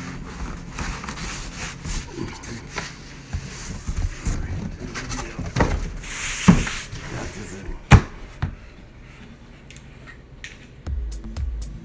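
Handling noises while unpacking a speaker: rustling and scattered knocks, with two sharp, loud knocks about six and a half and eight seconds in. Background music with a steady beat comes back near the end.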